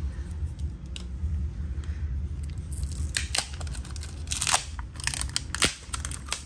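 Clear plastic film being peeled off a phone's midframe, crinkling and tearing in a run of crackles that starts about three seconds in, over a steady low hum.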